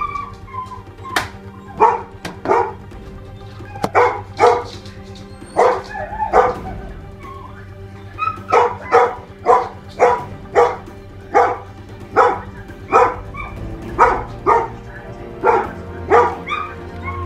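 A dog barking over and over, in single barks and quick runs of two or three, about every half second to a second. A steady low hum runs underneath.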